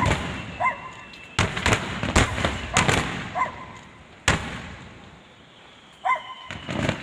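Aerial fireworks shells bursting in a run of sharp bangs, each trailing off as it echoes. After a lull of about a second, more bursts come near the end.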